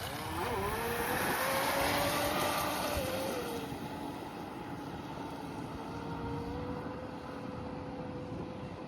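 Brushless motor of a Pro Boat Blackjack 26 RC catamaran whining at high speed on a 3S, 4300 kV setup. The whine rises in pitch and gets louder in the first seconds, drops in pitch about three and a half seconds in, then runs on steadier and quieter. Wind noise on the microphone throughout.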